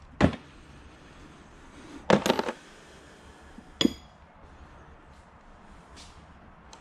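Metal clinks of hand tools and loosened cylinder-head bolts being handled on a Honda L15B7 engine: a short knock, a brief clatter about two seconds in, then a single ringing metallic clink a couple of seconds later.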